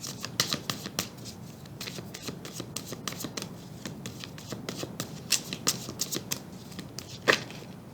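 Tarot deck being shuffled by hand: a run of quick, irregular card clicks and riffles, with one sharper snap near the end.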